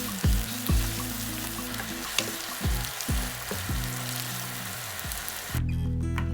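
Food sizzling as it fries in oil in a pan, a steady crackling hiss that cuts off suddenly near the end.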